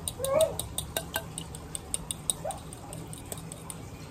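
A fork beating egg and milk in a glass mixing bowl, ticking against the glass several times a second. A baby gives a short rising squeal about half a second in, and a fainter one about two and a half seconds in.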